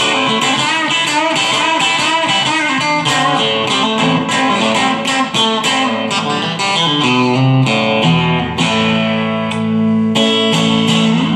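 Electric guitar, a Chinese-made Stratocaster copy, being played: quick picked notes and chords, several attacks a second.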